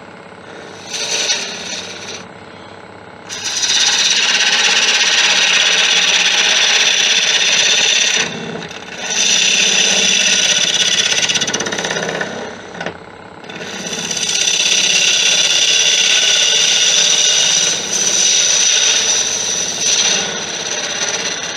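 Bowl gouge cutting into a wood blank spinning on a Laguna 1836 wood lathe: a loud, steady hissing cut in several passes of a few seconds each, with short breaks between them as the tool comes off the wood. It starts about three seconds in.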